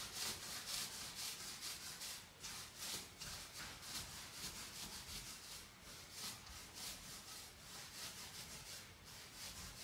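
Palms rolling a log of cookie dough back and forth on a kitchen worktop: faint, soft rubbing strokes, about two a second.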